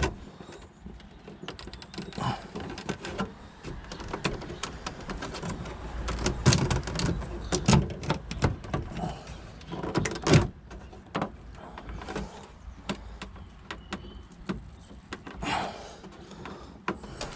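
Plastic interior trim panel being pried and pulled against its retaining clips: scattered clicks, creaks and knocks, busiest from about six to ten seconds in.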